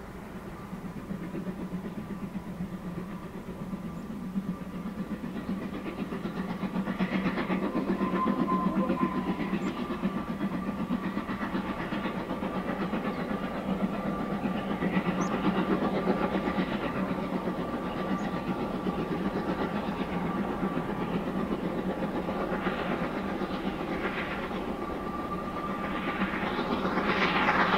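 Narrow-gauge steam train running on the Welsh Highland Railway, growing louder over the first several seconds as it draws near, with a rail clatter and repeated surges of noise; it is loudest near the end.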